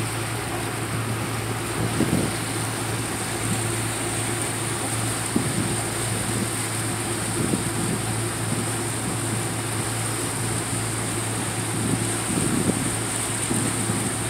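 Carver motor yacht's engines running steadily underway, a constant low drone heard from on board.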